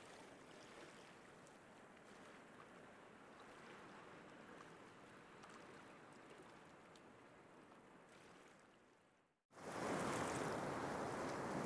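Steady, even rush of water, like surf on a sandy beach. It fades out about nine seconds in, and after a brief silence a much louder rush of water starts abruptly.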